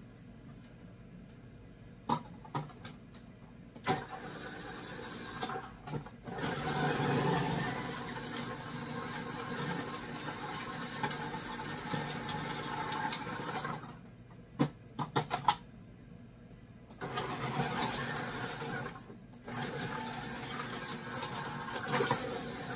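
Electric food processor shredding zucchini on a medium shredding disc: the motor runs for about ten seconds, stops, then runs again twice near the end with a short break between. Sharp clicks and knocks come before the first run and in the pause.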